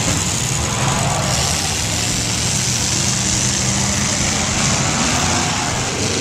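Several demolition derby cars' engines running together as one steady, loud din, with no clear crash.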